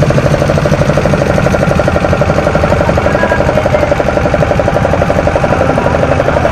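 Engine running steadily with a rapid, even knocking beat.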